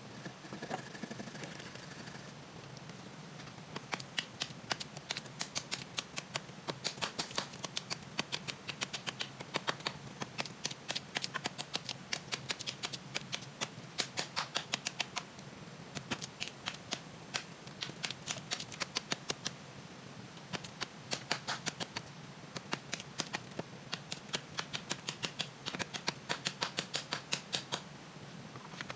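Quick runs of short, sharp cutting or scraping strokes, several a second, with brief pauses between runs, over a steady low hiss.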